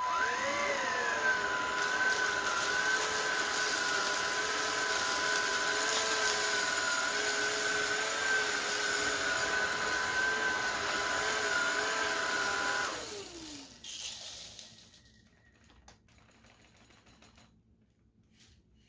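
Xiaomi Shunzao Z11 cordless stick vacuum switched on: its motor spins up with a brief rise in pitch, then runs steadily with a high whine over a rush of air. About thirteen seconds in it is switched off and the whine falls away as the motor winds down.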